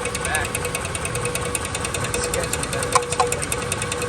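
Dodge 4.7 L V8 running with fast, even ticking and rubbing. Rust swelling from the iron block has pushed the spacer plate into the flywheel, which scrapes against it as it turns.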